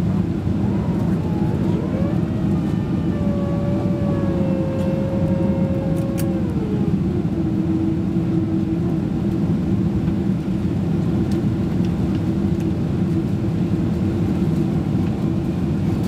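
Cabin noise of a Boeing 767-336 in flight: a steady, deep rush of engines and airflow. A whining tone comes in about two seconds in, holds, then glides down and carries on at a lower pitch.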